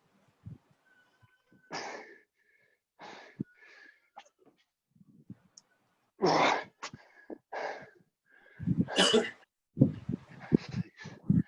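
People breathing hard in irregular, gasping exhalations, out of breath from doing burpees. The loudest breaths come about six seconds in and about nine seconds in.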